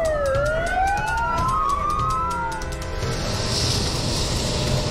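Two emergency-vehicle sirens wailing, their pitches gliding up and down and crossing each other, over street traffic. About three seconds in they cut off and give way to a steady hiss and low rumble.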